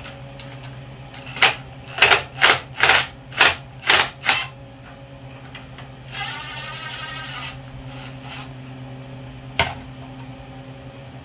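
Cordless impact driver hammering in a quick series of about seven short bursts over three seconds, loosening the rear axle fasteners of a dirt bike. A little later the driver whirs freely for about a second and a half, and near the end there is a single clack as the tool is set down.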